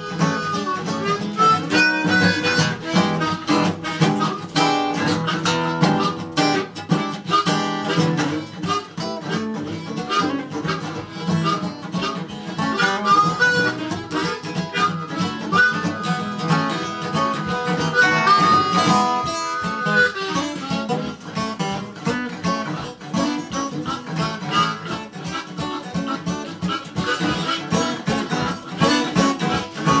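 Blues instrumental break: a harmonica playing lead over a strummed acoustic guitar. Past the middle the harmonica holds a few long notes.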